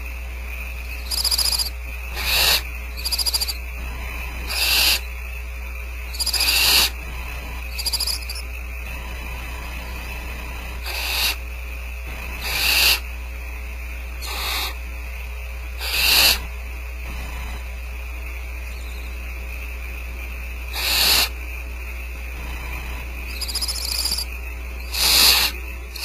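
Barn owl nestlings giving hoarse, hissing begging calls: about a dozen short rasps at irregular intervals, with a gap of several seconds in the middle. A steady hum runs underneath.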